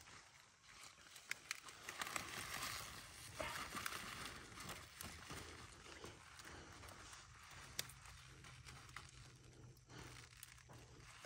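Rustling and handling noises with scattered light clicks and knocks, loudest a couple of seconds in.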